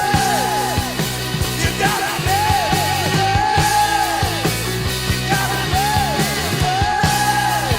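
Loud punk-style rock music with a steady drum beat and repeated arching melodic lines.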